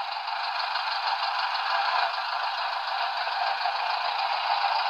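Steady in-cabin running noise of an old Volkswagen Beetle rolling slowly: its air-cooled engine running with the body and fittings rattling.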